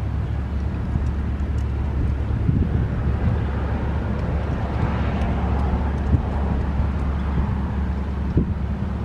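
A road vehicle passing, its noise swelling and fading about halfway through, over a steady low engine hum and wind on the microphone.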